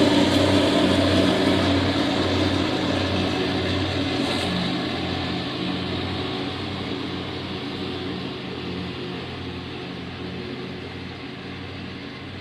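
Lawn mower engine running steadily while mowing, its sound gradually fading as the mower moves away.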